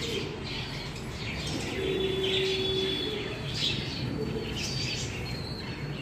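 Pigeons cooing low in an aviary, with higher bird chirps scattered throughout.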